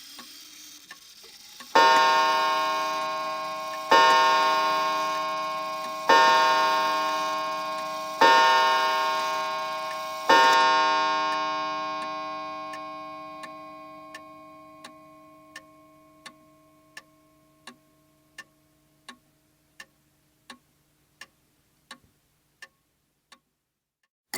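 Large wall chime clock striking five times, about two seconds apart, each strike ringing with many overtones and the last fading slowly. The clock's ticking, about one tick every 0.7 seconds, runs under the strikes and stands out once the ringing dies away.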